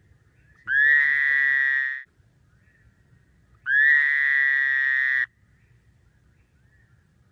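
A frog giving two long, high-pitched calls about three seconds apart, each rising briefly at the start and then held steady for about a second and a half. Faint short chirps sound between them.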